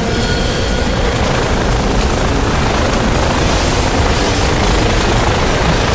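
Designed sound-effect rumble: a dense, steady rushing noise with a deep low end. A few faint held tones sit on top in the first second.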